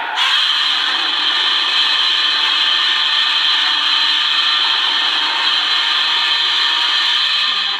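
Godzilla's roar, a film monster sound effect: one long, harsh roar that starts just after the beginning and stops shortly before the end.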